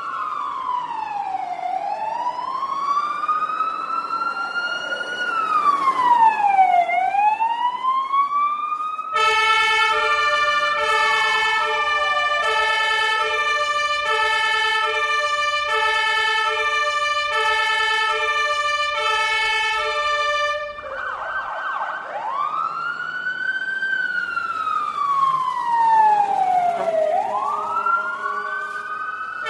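Fire truck siren sounding a wail that rises and falls slowly. About nine seconds in it switches to a rapid alternating two-tone pattern, and about twenty-one seconds in it returns to the wail.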